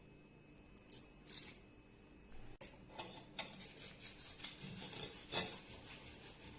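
A few short crinkles of a cheese cube's wrapper being opened, then a cube of cheese grated on a hand grater: repeated rasping strokes, about three a second, starting about two and a half seconds in.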